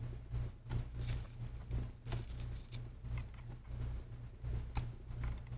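Faint, irregular clicks and rustles of metal tweezers working at the edge of an iPad, pulling a strip of adhesive tape out from under the screen, over a low steady hum.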